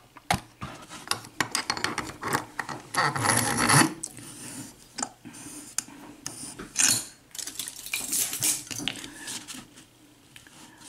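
Metal lockpicking tools and a lock cylinder being handled: irregular small metallic clinks and clicks with short stretches of rubbing and scraping.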